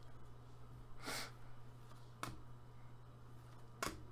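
Faint handling of trading cards in gloved hands: two soft clicks, a little over two seconds in and near the end, with a soft breath about a second in, over a steady low hum.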